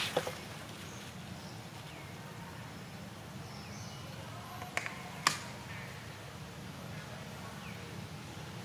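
Quiet outdoor ambience: a steady low hum with a few faint high chirps, broken by several sharp clicks, the loudest about five seconds in.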